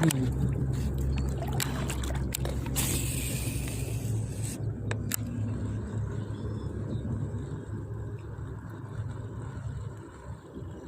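A motor engine running with a steady low hum that slowly fades away. A short hiss comes about three seconds in.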